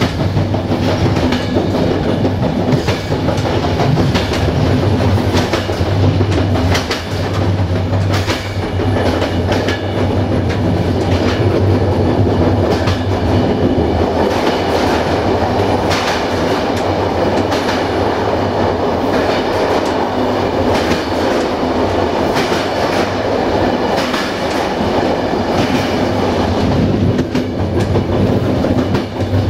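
Passenger train coach rolling at speed: a steady running rumble of wheels on rails, with the clickety-clack of the wheels striking rail joints at irregular intervals.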